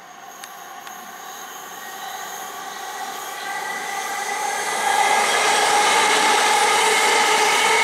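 A c2c Electrostar electric multiple unit approaching and passing close by. Its running noise grows steadily louder for about five seconds, with a whine of several steady tones coming in, then holds loud and steady as the carriages go past.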